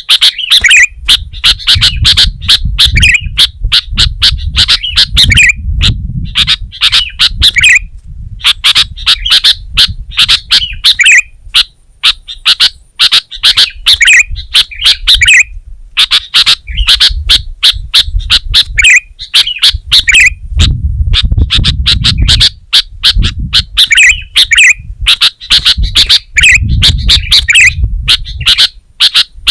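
Sooty-headed bulbul (kutilang) singing loudly and without pause: rapid runs of sharp, chattering notes repeated in short phrases, with a low rumble underneath at times.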